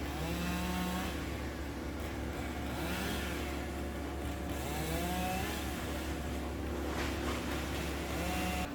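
Wood chipper's engine running steadily, its pitch rising and falling a few times, about a second in, around three seconds and around five seconds.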